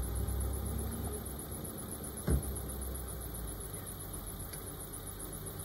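Car engine idling low and steady, with a single thump a little over two seconds in.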